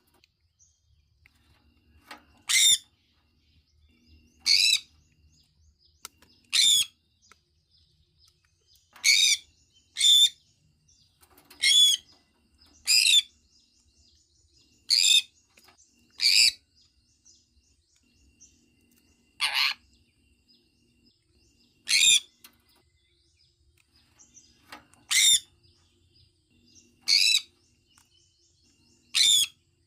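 Sun conure calling: about fourteen short, shrill, high-pitched calls, one every second or two, with brief pauses between them.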